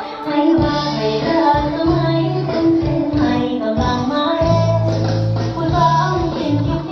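Music: a song with a singing voice over held bass notes.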